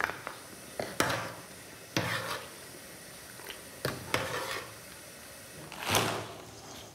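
Kitchen utensils knocking and scraping against a steel cooking pot of fish broth: a knife and a spoon, several separate clinks about a second apart. Near the end there is a louder knock and scrape of a knife on a wooden cutting board.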